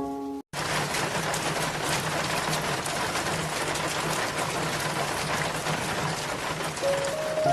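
Steady, dense rush of falling water that starts abruptly about half a second in, after a brief cut to silence. A few soft music notes sound at the very start and come back in near the end.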